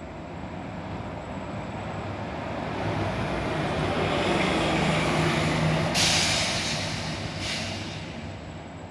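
A heavy vehicle passing, its noise swelling and then fading, with a sudden hiss about two-thirds of the way through and a shorter one a second later.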